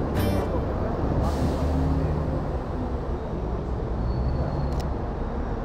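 Busy street traffic with a heavy vehicle's engine running close by, a brief rattle near the start and a short hiss of air about a second in.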